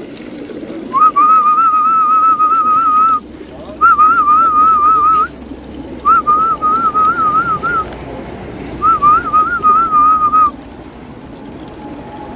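A person whistling four short phrases on one high note that wavers up and down a few times a second, with brief gaps between the phrases.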